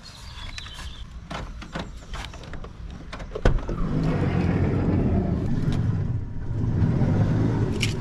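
Van side door being opened: light clicks and jingles, a sharp latch click about three and a half seconds in, then a loud low rushing noise that lasts until a last click near the end.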